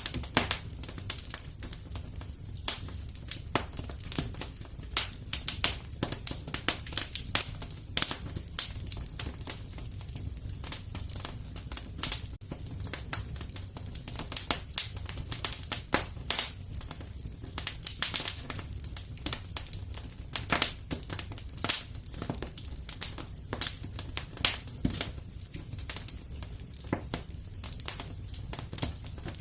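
Wood fire crackling, with irregular sharp pops and snaps over a steady low rumble of the flames.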